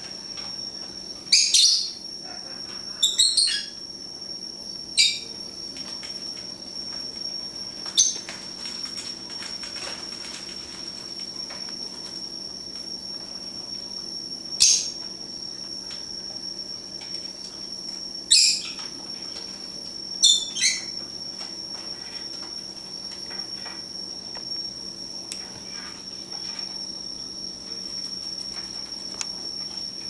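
Pet lovebirds giving short, shrill chirps, scattered through the first twenty seconds and some in quick pairs, over a steady faint high-pitched whine.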